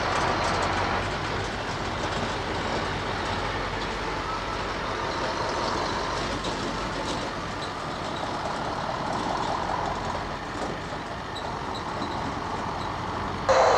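Distant Ilyushin Il-86VKP's four NK-86 turbofan engines running as the aircraft taxis, a steady engine noise. The sound jumps abruptly louder near the end.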